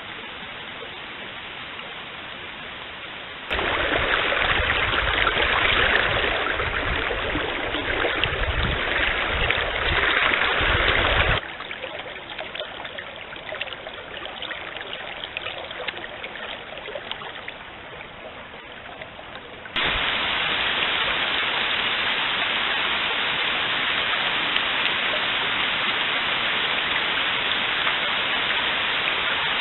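Stream water running over rocks, a steady rushing noise that jumps louder about three and a half seconds in, drops back about eleven seconds in, and turns louder again about twenty seconds in. A low rumble sits under the water in the loud first stretch.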